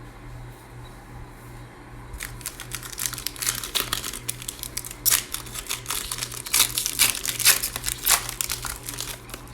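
Plastic trading card pack wrapper being torn open and crinkled by hand: a rapid, irregular crackle that starts about two seconds in and runs until just before the end.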